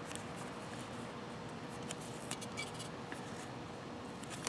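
Vinyl electrical tape being handled and wrapped around a wire: faint crinkles and scattered small clicks, over a low steady hum.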